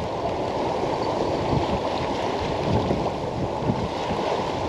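Strong wind buffeting the microphone: a steady, low rumbling noise.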